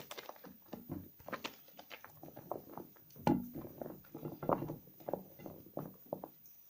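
Hands lathering and squeezing soaked soap scraps, making irregular wet squishing and clicking sounds.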